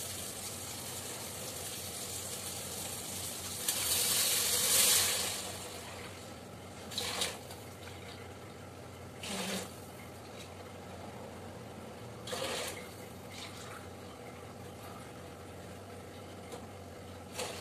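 Water poured into a large aluminium cooking pot over fried masala, adding the cooking water for bagara rice: one long loud pour about four seconds in, then several shorter splashes from a cup.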